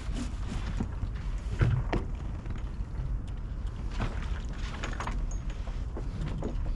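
Sailing yacht under way: a steady low rush of wind on the microphone and water along the hull, with a few short knocks.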